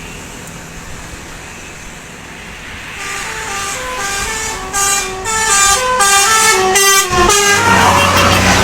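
Telolet bus horn: a bus's multi-tone air horn playing a quick jingle of stepped notes. It starts about three seconds in, after steady road noise, and gets louder toward the end.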